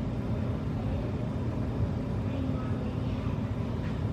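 A steady low rumbling hum with no breaks, from background machinery.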